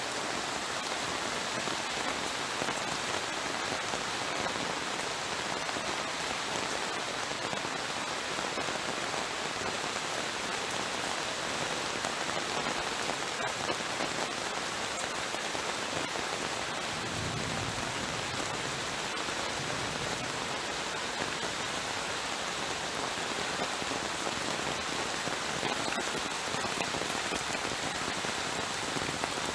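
Heavy tropical downpour, a steady dense hiss of rain falling on surfaces, with a brief low rumble a little past halfway.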